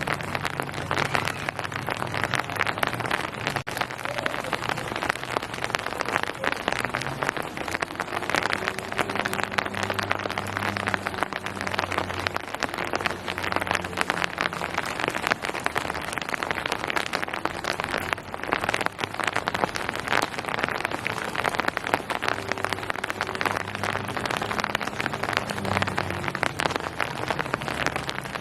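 Steady rain falling, a dense, even patter of raindrops hitting a surface.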